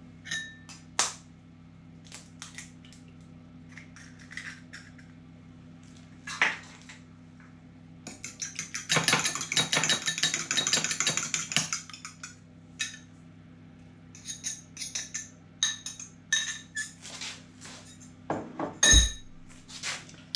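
Eggs being lightly beaten with a fork in a small bowl: scattered taps of metal on the bowl, then about four seconds of fast, continuous clinking whisking, then more taps. A single heavier knock comes near the end.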